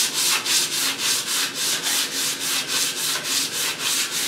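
150-grit sandpaper rubbed by hand along the edge of a wooden cabinet part in quick, even back-and-forth strokes, about three a second, cleaning up the edges.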